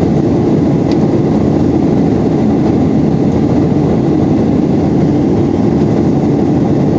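Steady cabin noise of a Boeing 737-800 in flight, heard from a passenger seat: the even drone of the engines and the air rushing past the fuselage. A faint click about a second in.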